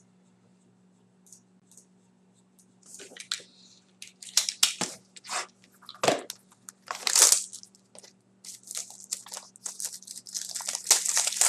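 Packaging on a sealed box of hockey trading cards being opened by hand: irregular crinkling and tearing that starts about three seconds in and grows busier toward the end.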